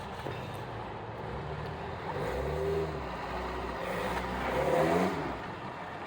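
Off-road vehicle engine revving: the pitch rises and falls about two and a half seconds in, then climbs again to the loudest rev about five seconds in before dropping back.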